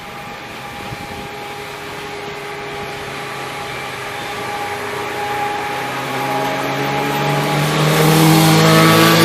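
Diesel engine of a narrow-gauge train growing steadily louder as it approaches, its engine note rising in pitch over the last few seconds and loudest near the end.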